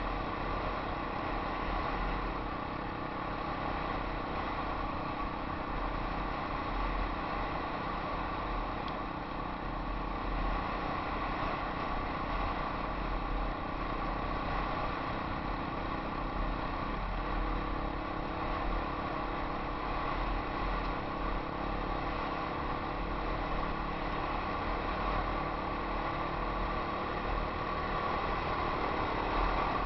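Yamaha XT 250 single-cylinder four-stroke dirt bike engine running steadily while riding along a dirt track, heard through a helmet camera with wind rumble on the microphone. The engine note steps once, about halfway through.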